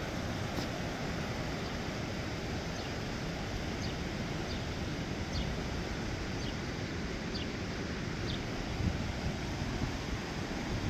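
Steady rush of the Deschutes River's whitewater pouring over rocks, with a few faint high chirps.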